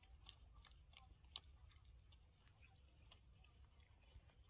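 Near silence: faint scattered clicks and light scratches of small monkey hands picking at a wicker basket, over a faint steady high-pitched tone.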